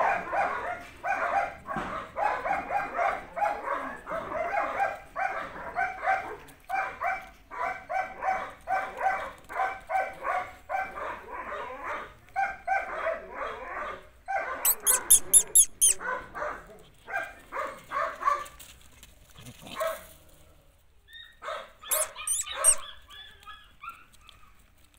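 Belgian Malinois barking over and over, about two barks a second, then thinning out to a few scattered barks for the last several seconds. Twice a quick run of sharp, high-pitched sounds cuts in, the loudest about halfway through.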